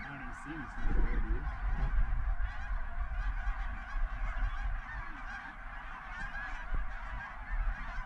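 Snow geese calling: a dense, steady chorus of many overlapping honks from a large flock.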